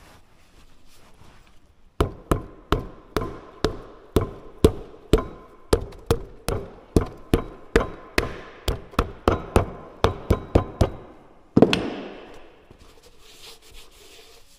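A hammer tapping steadily, about three blows a second, to seat a rubber concrete-pump piston cup onto its piston, each blow with a short metallic ring. One harder blow comes near the end, followed by faint rubbing.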